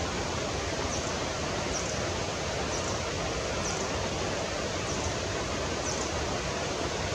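A steady rushing noise, with faint high chip notes from a small bird about once a second.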